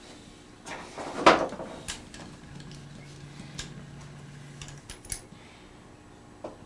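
Metal clinks and clatter of hand tools as locking pliers are handled and clamped onto a heated brass distributor timing gear on a hot plate. One sharper clank comes about a second in.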